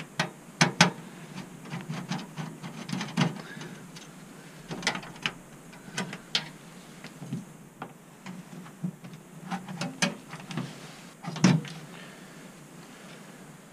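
Hands and a screwdriver working on a steel PC case to take out a GTX 750 graphics card: irregular clicks, taps and small metal knocks as the bracket screw comes out and the card is handled. The sharpest clicks come about a second in and again near the end.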